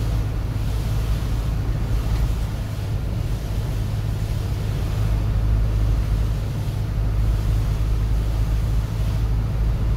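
Steady low rumble inside a moving vehicle's cabin on a wet highway: engine and road noise with a hiss of tyres on the wet surface.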